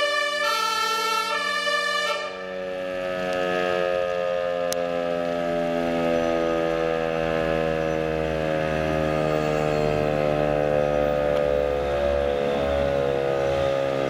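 A fire-station alarm siren gives a long, steady wail that sinks slowly in pitch, greeting the arriving fire engine. For about the first two seconds the truck's two-tone emergency horn alternates over it, then stops.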